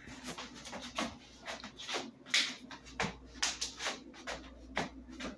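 Handling noise from a handheld phone being moved around: a string of irregular soft rubs, taps and scrapes.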